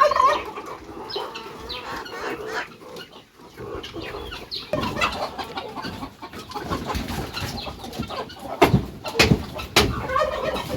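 A flock of chickens clucking and calling, many short overlapping calls. A few sharp knocks come near the end.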